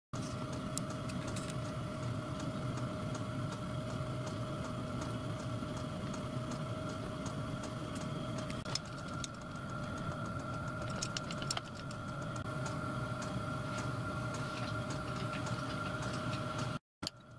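Machine tool running steadily: a motor hum with a steady whine over a low rumble, with light ticks now and then.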